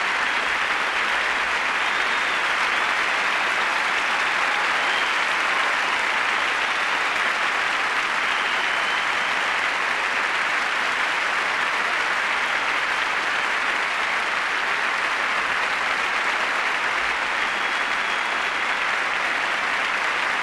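Large lecture-hall audience applauding, a dense, steady ovation that keeps going without letting up.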